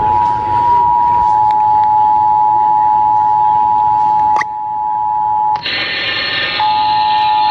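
Emergency Alert System attention signal over a radio broadcast: the steady two-tone alarm. It breaks with a click about four seconds in. Near the end a noisier jumble of tones comes in, and one of the two tones returns.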